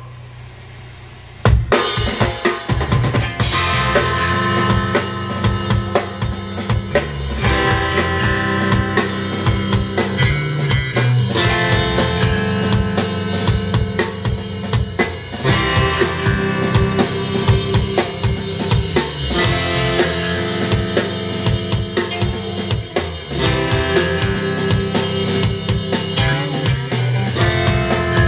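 Rock band playing live with drum kit, bass and electric guitars. A low held note sounds alone at first, then the full band comes in together about a second and a half in and plays on with steady drum hits under sustained guitar chords.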